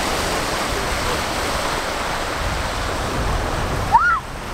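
Small sea waves washing onto a pebbly shore, a steady rush of surf. About four seconds in, a person gives one brief high-pitched yelp.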